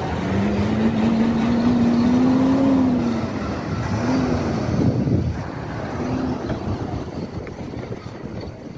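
Heavy diesel truck engine running under load as the truck hauls large marble blocks, with a low droning note that rises slightly and then falls over the first three seconds. The sound fades down in the last few seconds.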